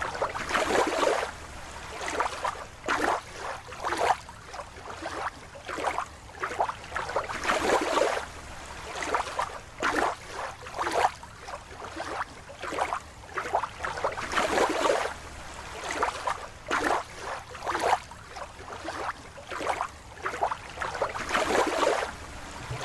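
Water splashing and sloshing in irregular surges, about one a second, with no voice or music.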